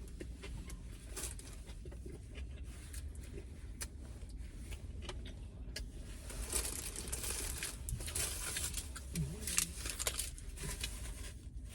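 Someone eating a bite of a fast-food burger: chewing, with small clicks and the crinkling of the paper wrapper, louder in the second half.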